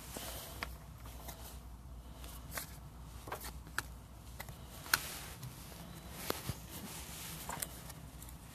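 Scattered light clicks and taps of trading cards being handled, over a low steady hum.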